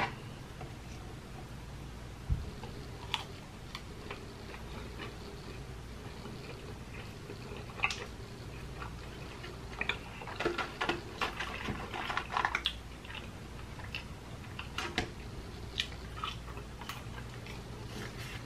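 A person chewing a fried chicken tender dipped in cheese sauce close to the microphone: irregular wet mouth clicks and squelches, busiest around ten to thirteen seconds in, over a faint low hum.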